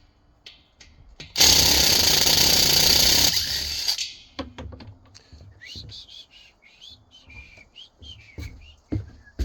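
A power tool runs in one burst of about two seconds and then winds down. Scattered clicks and faint high chirps follow.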